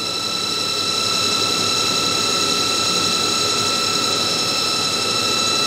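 CNC lathe running with its spindle turning and no axis moving: a steady mechanical hum and noise with several constant high-pitched whine tones from the spindle motor and its drive.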